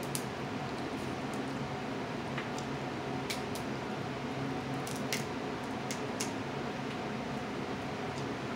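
Snow crab leg shells being cracked and snapped apart by hand: a string of short, sharp cracks, several of them in quick pairs. A steady room hum runs underneath.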